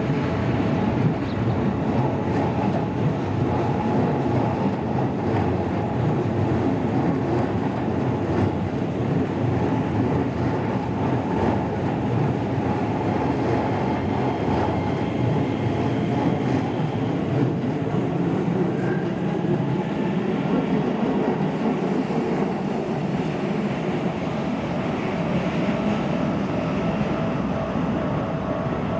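A train running steadily, an even rumble with a faint held tone above it.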